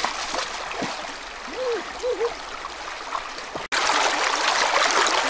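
Shallow, stony river water rushing and splashing around wading legs. After a brief cut about three-quarters of the way through, the rushing water is louder and closer.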